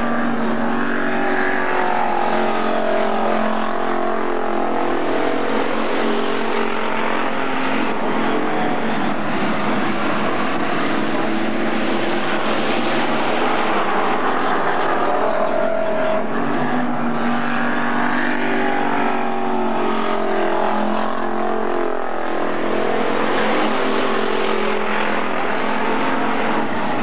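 Street stock race cars' engines running hard around the track, their pitch rising and falling over and over as the cars accelerate, lift and pass by.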